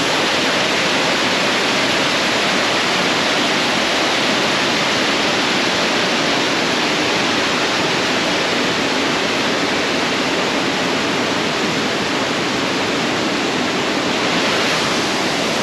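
Water of Blanchard Springs cascading: a steady rush of falling water.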